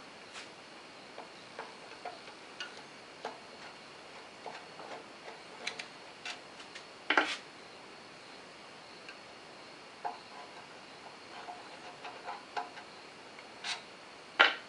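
Irregular small metallic clicks and clinks of a screwdriver working loosened screws out of a lathe bed, with a louder clink about seven seconds in and another near the end.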